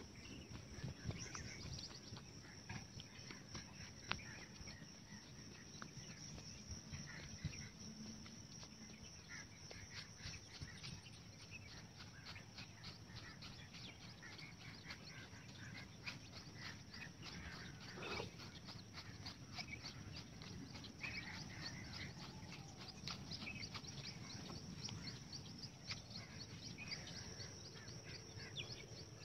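Faint open-air morning ambience: scattered distant bird chirps over a steady high thin whine, with soft footsteps and light ticks on a dirt path.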